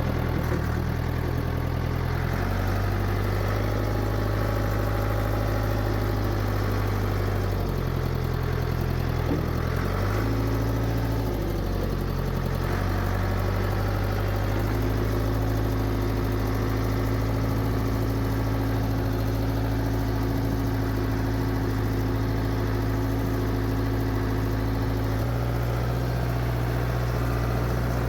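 Heavy machinery engine running steadily, its pitch shifting up and down in steps several times as throttle and load change.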